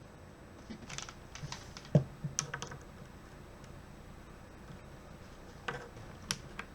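Irregular clicks and taps from a mechanical keyboard being worked on, in two short clusters, with one louder knock about two seconds in.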